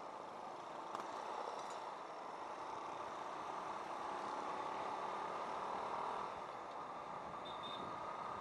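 A motorcycle riding along in traffic: a steady rush of road and wind noise with the engine running underneath, and a single short click about a second in.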